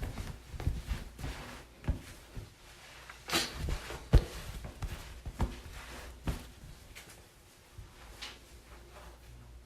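Cloth towel being rubbed and handled in drying: irregular rustling swishes and soft knocks, with one broad swish a little over three seconds in and a sharp thump just after it, the loudest moment, then quieter handling.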